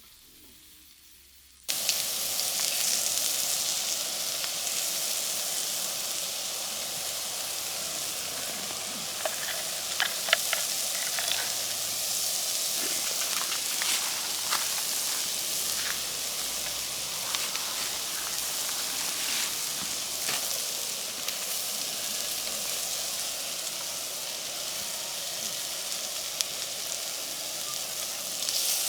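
Food sizzling and frying in a hot pan, a steady hiss with scattered pops and crackles, starting abruptly about two seconds in.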